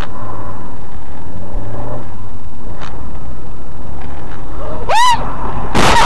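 Loud, steady, distorted road and engine noise of a car as picked up by a dashcam. Near the end come two short high-pitched squeals that rise and fall in pitch, the second together with a sudden noisy burst.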